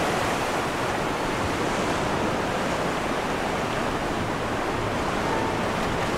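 Steady rush of sea water and wind past a sailboat under way, an even noisy wash with no breaks.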